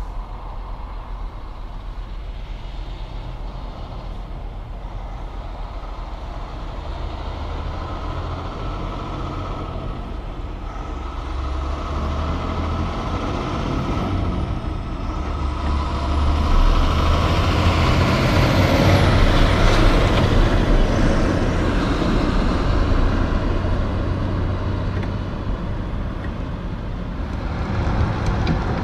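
Loaded logging truck's diesel engine running under way, with tyre and road noise, growing louder as it approaches and loudest about two-thirds of the way in.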